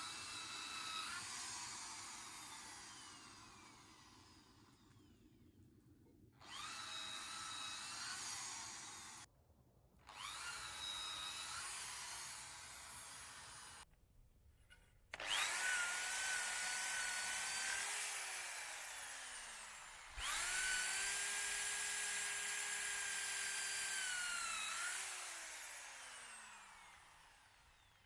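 Electric drill boring holes into hardwood logs for shiitake spawn plugs, run in about five separate bursts. Each burst is a steady whine that winds down in pitch as the trigger is released.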